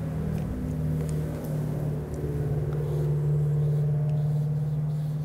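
A steady low hum of a running motor, growing a little louder toward the middle before easing off slightly.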